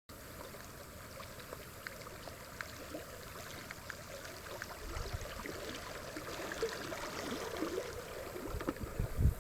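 River water trickling and gurgling around a kayak, with scattered small ticks and a couple of low thumps near the end.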